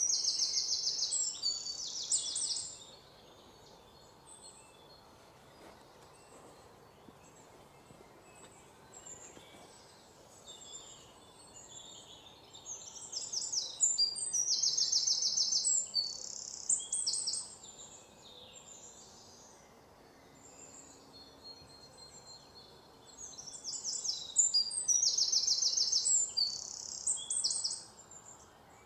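Bird song: thin, high-pitched phrases of rapid repeated notes, in three bouts of a few seconds each, roughly ten seconds apart.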